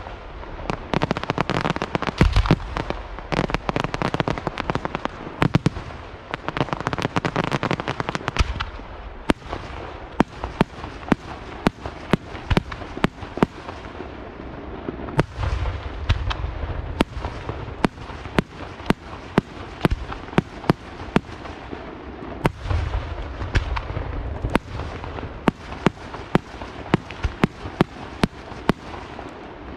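Aerial fireworks display: dense crackling and booming of shells bursting for the first eight seconds or so, then a long run of sharp bangs, several a second, with deeper booms from time to time.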